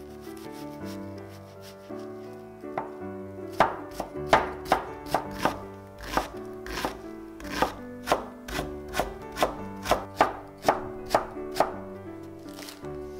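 Kitchen knife chopping onion on a wooden cutting board: a run of sharp knocks about two to three a second, starting about three and a half seconds in, over soft background music.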